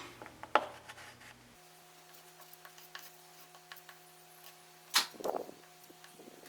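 Faint handling noises: two sharp clicks or taps, one about half a second in and a louder one about five seconds in followed by a brief rattle, with scattered small ticks over a steady low hum.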